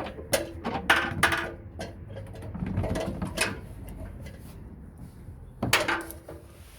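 A series of sharp clanks and knocks, several with a brief metallic ring, over a low rumble.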